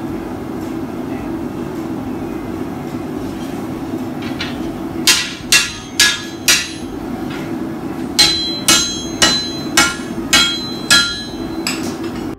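Hand hammer striking a red-hot steel bar on an anvil: four ringing blows about half a second apart, a pause, then six more at the same pace, over a steady drone.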